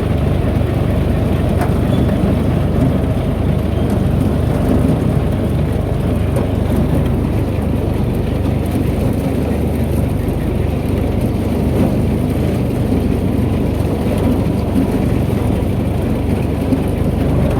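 Tractor and corn elevator running steadily while a wagon of ear corn is unloaded into the corn crib.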